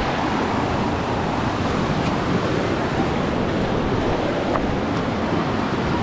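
Steady rush of a shallow, rocky mountain river running over stones and small rapids.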